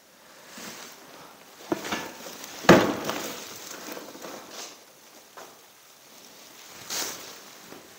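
Handling noises: the plastic housing of a compressed-air hose reel knocking as it is set down on a workbench, with a plastic bag rustling. A few knocks, the loudest nearly three seconds in.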